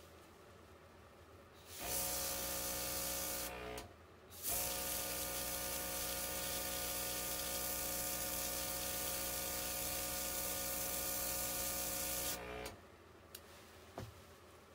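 OPAWZ airbrush spraying with its small compressor running: a steady hiss of air with a hum underneath, in two runs, a short one of about two seconds and then, after a brief stop, a long one of about eight seconds that cuts off sharply.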